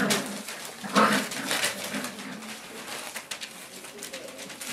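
Five-week-old Boerboel puppies making low grunting sounds, the loudest about a second in, over a scatter of small clicks from paws and play.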